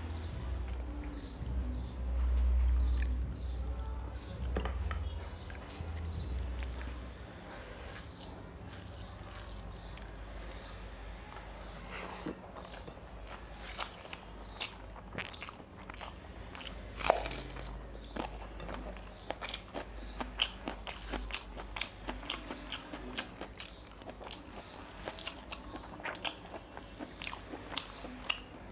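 Close-up eating sounds of a person eating rice and mutton liver curry by hand: wet chewing, mouth smacks and sticky finger clicks as food is mixed and eaten. Low thudding rumble in the first several seconds, then steady runs of short sharp clicks.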